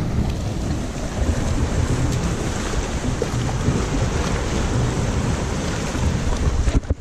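Wind buffeting the microphone over sea surf washing against shoreline rocks, a steady rushing noise with gusty low rumble, cutting off just before the end.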